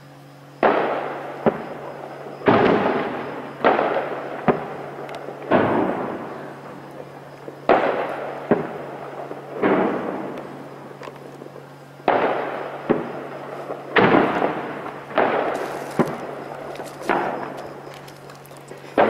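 Shelling: a string of explosions, roughly one every second or two, each sharp blast trailing off in a long echo.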